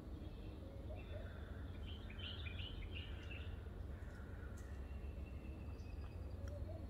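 Faint outdoor birdsong: a quick run of short chirps about two seconds in, and a thin held whistle later, over a steady low background rumble.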